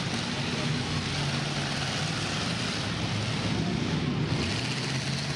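Several demolition derby cars' engines running together in a dense, steady wash of engine noise, swelling briefly about three and a half seconds in.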